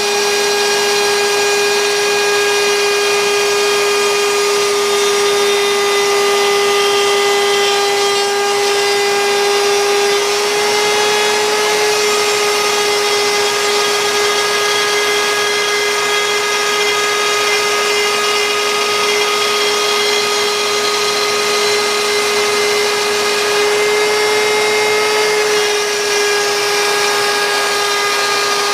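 CNC router spindle running at speed and cutting wood, a loud steady high whine whose pitch shifts slightly a couple of times as the load changes.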